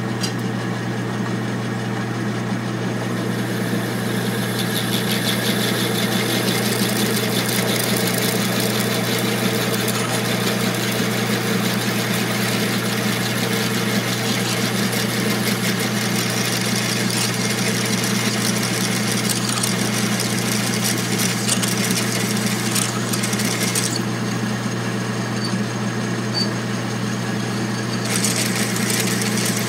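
Metal lathe running at a steady speed with a steady hum, while a twist drill in the tailstock chuck bores out the worn pin hole in a hit-and-miss engine's igniter trip. A higher hiss from the cutting fades for a few seconds near the end.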